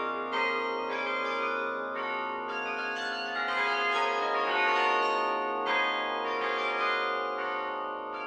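Bok Tower carillon's tuned bronze bells playing a melody: notes struck about twice a second, each ringing on under the next, over a low bell note that keeps sounding underneath.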